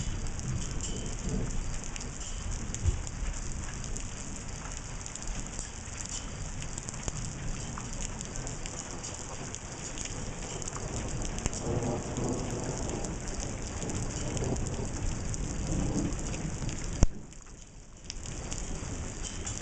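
Steady thunderstorm rain with a low rumble underneath. A sharp click comes about seventeen seconds in, and the sound drops away for about a second after it.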